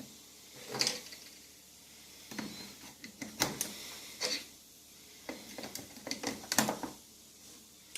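A string of small, separate clicks and knocks at irregular intervals.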